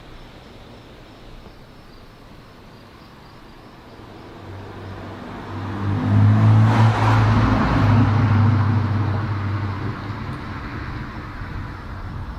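A vehicle drives past: a low engine hum and tyre noise swell from about four seconds in, peak around seven seconds, then slowly fade.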